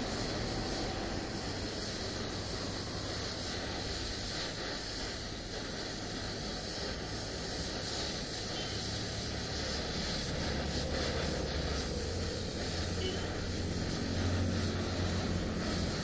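Oxy-fuel gas welding torch flame hissing steadily as filler rod is fed into the weld pool, with a low hum growing stronger near the end.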